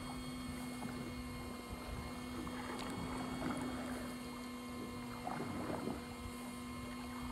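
Steady motor hum aboard a small fishing boat, over a faint wash of waves against the hull.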